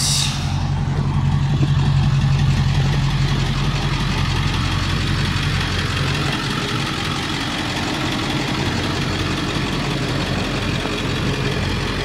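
Ford E-350 ambulance's engine idling steadily.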